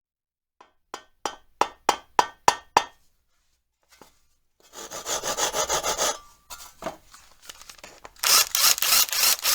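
Workshop tool sounds in sequence: about eight sharp, ringing knocks in quick succession, then a rapid rasping like hand sawing or filing of wood, then a louder, steadier whirring noise near the end.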